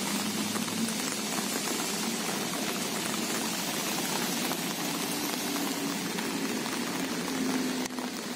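Steady rain falling, an even hiss of drops on wet pavement and sea, with a faint low hum underneath.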